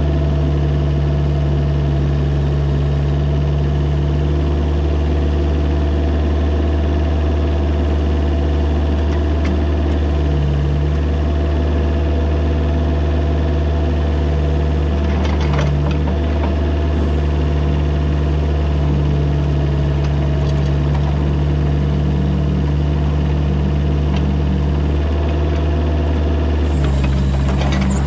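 Mini excavator engine running steadily. Near the end the engine note shifts and a brief high squeal sounds.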